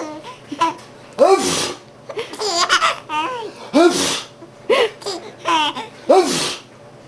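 A man's sneezes, about three of them roughly two and a half seconds apart, each answered by a baby's squealing bursts of laughter.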